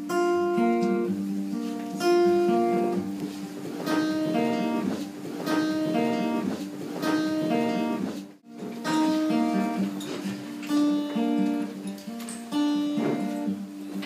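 Acoustic guitar played solo, picked notes in a repeating pattern, with a brief cut-out about eight seconds in.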